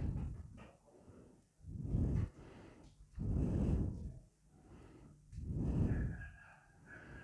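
A person breathing close to the microphone: four slow, soft breaths about two seconds apart.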